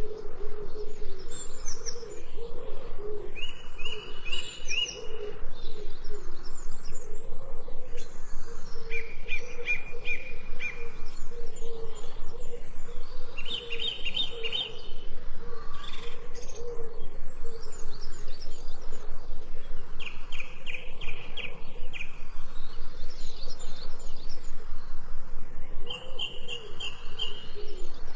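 Songbirds singing: a series of short, rapid trills, each lasting about a second or two and recurring every few seconds, over a steady low background.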